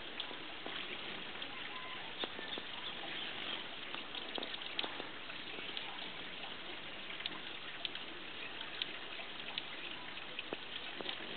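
Steady outdoor hiss with short, sharp clicks scattered through it at uneven intervals.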